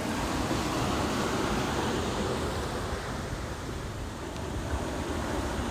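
Ocean surf mixed with wind buffeting the microphone, a steady noise with no distinct breaks.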